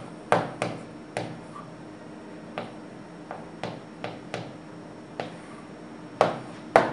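A pen tapping and clicking on a writing board as a word is written: irregular short clicks, a few a second, louder near the start and again near the end, over a faint steady hum.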